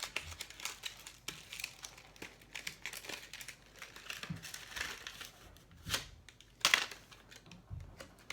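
Packaging being torn open and handled to unbox a fidget spinner: a steady run of crinkling and crackling with short tearing rustles, the loudest a little over halfway through.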